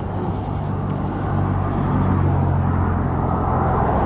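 A vehicle engine's steady low hum over outdoor background noise, fading out near the end.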